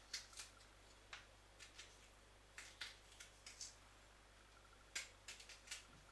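A tool cutting and scraping out the flesh of a raw black radish to hollow it: short crisp crunches and scrapes in irregular clusters.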